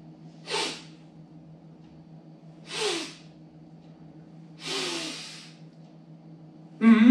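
A man's voice making short, breathy, hissing vocal sound effects as a warm-up. There are three, a couple of seconds apart, and each slides down in pitch at its end. Near the end comes a louder voiced sound that glides downward.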